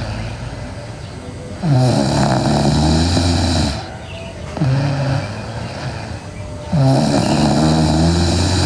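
A sleeping girl snoring loudly: two long, rough snores of about two seconds each, with a shorter snore between them.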